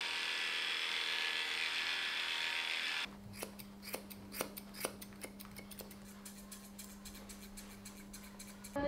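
A steady electric whir from a handheld grooming tool for about three seconds, which cuts off suddenly. Then grooming scissors snip through a poodle's fur, many quick snips at an uneven pace, quieter than the whir.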